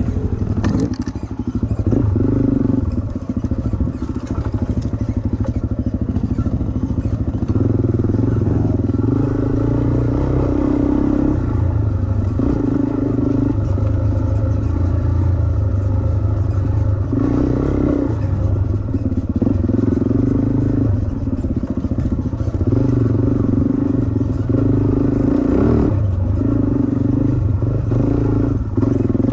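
Dirt bike engine heard close from the rider's own bike while trail riding, its revs rising and falling every few seconds with the throttle and gear changes.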